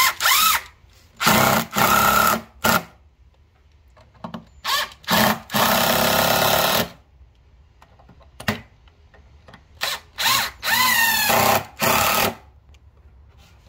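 Ridgid cordless driver running screws into a wooden bench leg, in about ten separate pulls of the trigger: short blips and longer runs, the longest about a second and a half in the middle.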